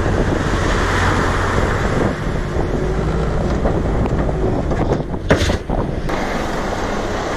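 Wind buffeting the microphone on a beach, with surf in the background and a brief rustle about five seconds in.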